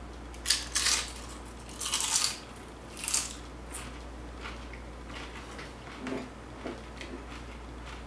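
A man biting into and chewing a tortilla chip heaped with chunky salsa: several crisp crunches in the first three or four seconds, then softer, sparser chewing.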